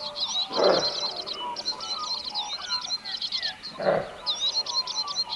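Two short, loud, low grunts from kangaroos, about half a second in and again near four seconds, over continuous high chirping of small birds.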